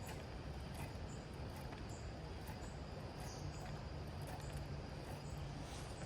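Insects chirping outdoors: short, high chirps repeating about once or twice a second over a steady rushing background.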